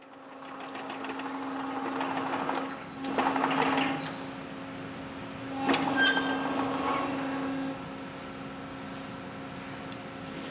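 Electric tracked mini loader running: a steady electric hum throughout, with two louder, rattly spells of machine noise about three seconds in and about six seconds in, the second starting with a couple of sharp clicks, as the machine drives and works its bucket.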